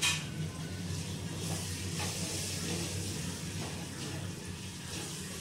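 Onion-tomato masala with spice powder sizzling in an aluminium kadai while a wooden spatula stirs and scrapes it, over a steady low hum.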